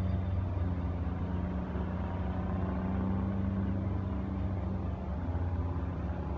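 Heavy engine running steadily: a low, even drone with a humming tone over it, easing slightly near the end.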